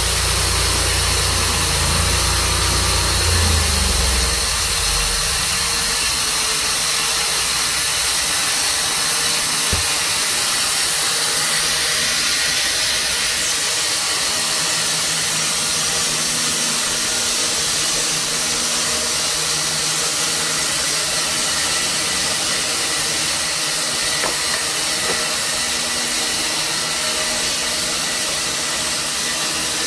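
Tru Cut portable sawmill running and sawing a cherry log, a steady loud hissing noise. The engine's low rumble drops away about four or five seconds in.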